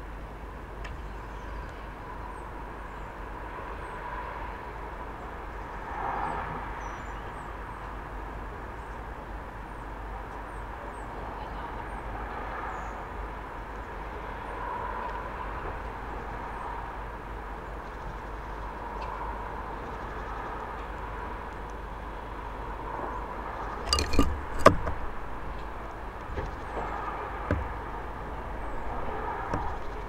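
Steady outdoor background hum of distant traffic with faint, high bird chirps. About three-quarters of the way through, a quick cluster of sharp knocks and clicks from birds at the wooden feeder, with one more knock a few seconds later.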